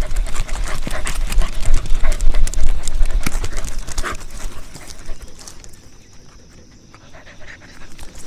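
A dog on the move outdoors: quick clicks and rattles with a heavy wind-like rumble on the microphone, easing off and going much quieter about five seconds in.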